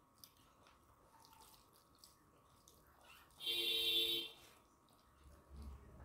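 Soft eating sounds: hands working rice on steel plates and mouths chewing, with small wet clicks. About three and a half seconds in, a loud hiss-like sound lasts just under a second.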